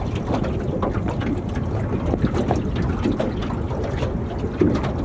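Wind buffeting the microphone, with small waves slapping irregularly against the hull of an anchored aluminium boat.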